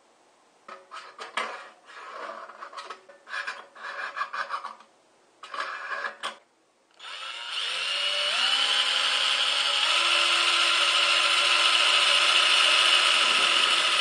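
Cordless drill with a small bit boring a hole through the side of a thin steel paint can: the motor starts about seven seconds in, runs steadily with its pitch stepping up a couple of times, and stops at the very end. Before it, a run of short scraping and handling noises.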